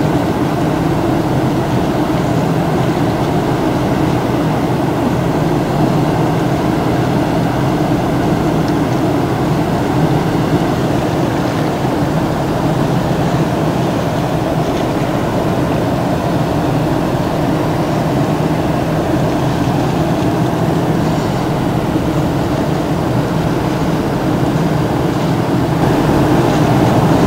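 Steady low mechanical rumble with a faint hum in it, holding level without change.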